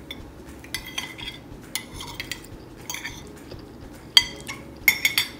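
Metal spoon and fork clinking and scraping against a ceramic plate while eating. Scattered clinks, the sharpest about four seconds in and a quick run of them near the end.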